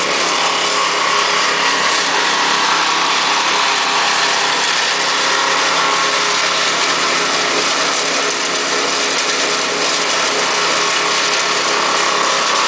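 Engine of heavy work machinery running steadily at an even speed, with no revving or cutting.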